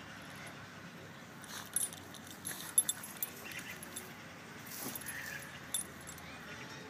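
Shiba Inu puppy digging in soil, its paws scratching at the dirt while the metal ring and clip of its harness and leash clink and jingle in scattered, irregular sharp clinks.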